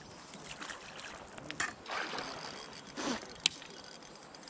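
A few short splashes of water, then a single sharp click.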